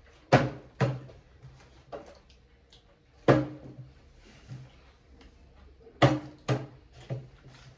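Plastic water bottle tossed and landing on a table: several sharp knocks as it hits and bounces, the loudest about three seconds in and a quick run of three near the end.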